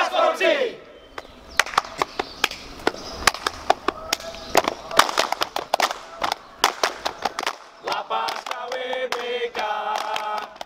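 A group clapping hands in a cheer routine: many sharp claps coming unevenly for about six seconds, after the tail of a shouted chant. About eight seconds in, the group starts chanting together.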